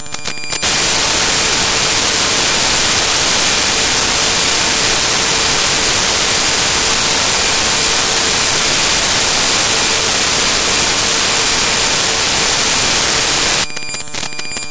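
Loud, steady hiss of digital static, white noise, matching the glitching picture. It cuts in about half a second in and cuts off abruptly about a second before the end, where stacked electronic tones take over.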